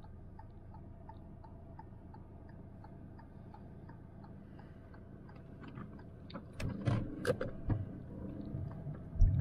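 A car's turn-signal indicator ticking steadily, about two ticks a second, over the low hum of the car inside its cabin. A few louder knocks come in the last few seconds.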